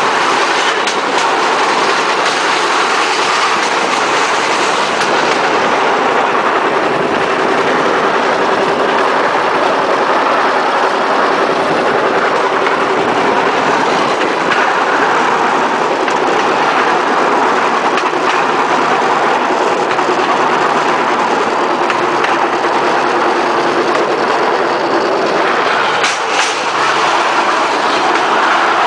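Bamboo train (norry) running along the rails: a steady loud rattle and rumble of its wheels on the track, with a faint steady hum from its small engine underneath. Near the end a few sharp clacks as it runs over rail joints onto a bridge.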